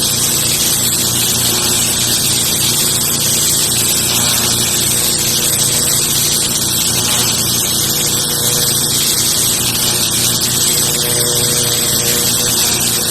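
Pressure washer running steadily: the loud hiss of the high-pressure water jet over the low, even hum of the machine's motor and pump.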